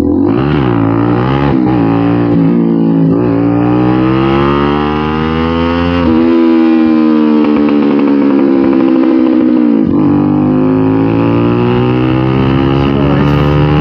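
Bajaj Pulsar NS200's single-cylinder engine running through an aftermarket SC Project slip-on exhaust while riding. The revs climb and ease with the throttle, and the pitch drops at a gear change about ten seconds in.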